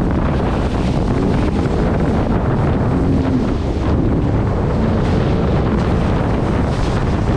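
Jet ski running at speed over open water, its engine pitch wavering slightly near the middle, under heavy wind buffeting on the microphone and a steady rush of water.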